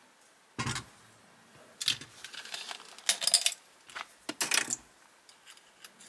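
A die-cast model car and its plastic chassis being handled on a work mat: several separate knocks and clicks, with short clusters of light rattling from small metal and plastic parts.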